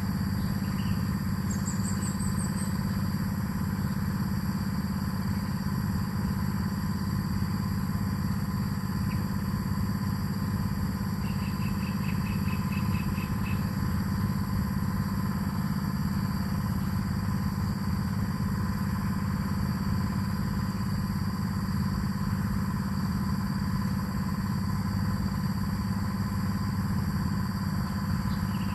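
A steady low mechanical hum, like a motor running, that does not change. Faint short high chirps sound about two seconds in, and a quick run of about ten faint chirps comes around the middle.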